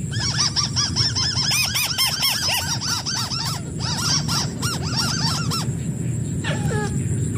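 White-browed crake calls: a rapid chattering run of nasal, arched notes with several voices overlapping, breaking off about five and a half seconds in, then a couple of single downslurred calls. A steady low hum runs underneath.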